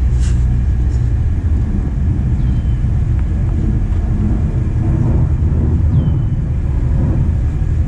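A steady low rumble, with two faint short falling chirps about three and a half seconds apart.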